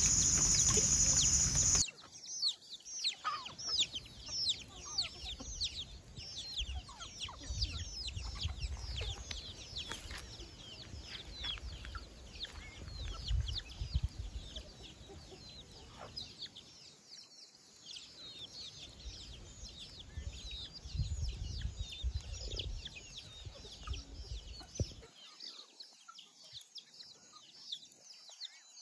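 Flock of native chickens feeding: many chicks peep continuously in short high notes, with hen clucks among them, over a low rumble. A louder, even noise in the first two seconds cuts off suddenly.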